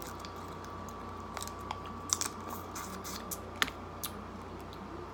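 Close-up eating sounds of shellfish: chewing, with the sharp clicks and cracks of shrimp and lobster shells being broken and peeled by hand. The loudest cracks come about two seconds in and again about three and a half seconds in, over a faint steady hum.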